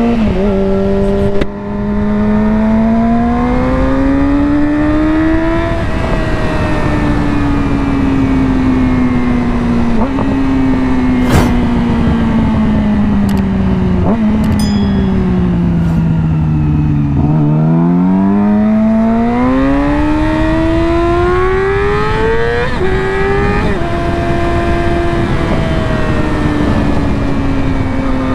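2020 Yamaha R6's inline-four engine through an M4 slip-on exhaust with the catalytic converter deleted, heard on the move. Engine pitch drops sharply about a second and a half in, then climbs under throttle. It falls away slowly as the bike slows, climbs hard again with a shift step near the end, and settles into a steady run.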